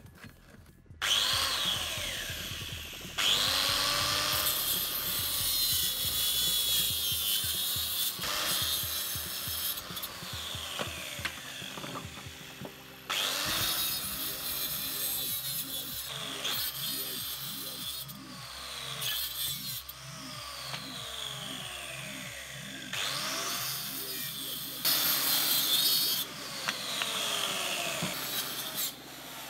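Restored Makita 4100NB electric cutter, fitted with a toothed saw blade, starting up about a second in and cutting through a dry wooden branch. The rasp of the teeth in the wood comes and goes in loudness, and the motor's whine drops in pitch as the blade bites, then climbs again as it frees.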